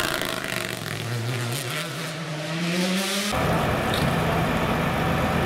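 Toyota GR Yaris Rally1 rally car's turbocharged four-cylinder engine accelerating away, its note rising steadily in pitch as it fades. About three seconds in, the sound cuts abruptly to a steady low engine hum.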